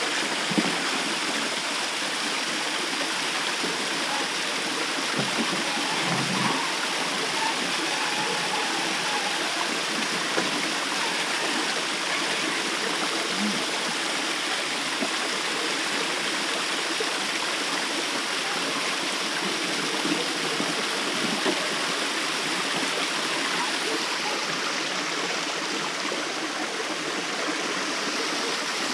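Small waterfall and creek running over rocks: a steady rush of water, with a light knock about half a second in.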